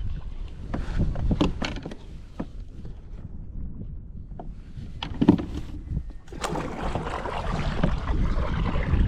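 Wind buffeting the microphone and water slapping against a Hobie Outback kayak's hull, with a few scattered knocks. The wind and water noise swells about two-thirds of the way through.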